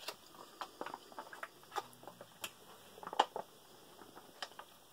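Scattered light clicks and taps of a ration pouch being handled while canned pear slices are emptied into a plastic mess-tray compartment; one tap a little after three seconds in stands out above the rest.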